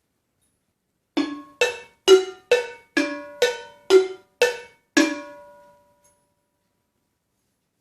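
A small hand percussion instrument struck nine times in an even walking rhythm, about two strokes a second. Each stroke rings briefly, and the pitch alternates between strokes.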